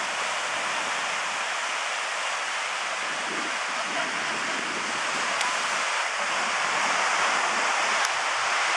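Ocean surf breaking on a sandy beach, a steady rushing wash that swells a little louder near the end.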